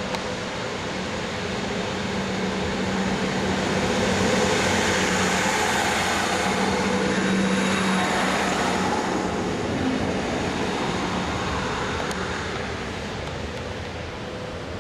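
NS DM '90 'Buffel' diesel railcar passing close by: a steady diesel hum under rushing wheel and running noise, rising to a peak about four to eight seconds in, then fading as the train goes away.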